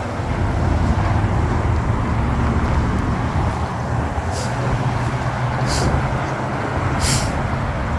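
Steady road traffic at a busy intersection, with vehicle engines running and tyre noise. Three short, high hisses come in the second half.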